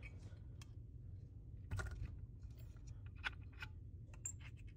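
Scattered light clicks and taps of small tools and parts being handled on a rubber repair mat, over a steady low hum; the sharpest tap comes nearly two seconds in, and a few more follow around three seconds in.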